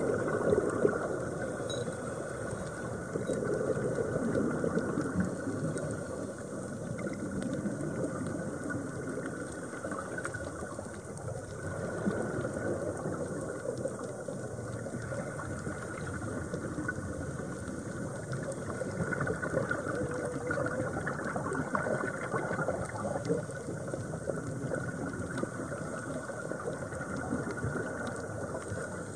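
Underwater noise picked up by a submerged camera: a steady hiss with irregular bubbling and crackle from scuba divers' exhaled air bubbles.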